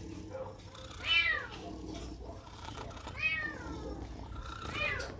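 Cat meowing three times, about two seconds apart; each meow rises and then falls in pitch.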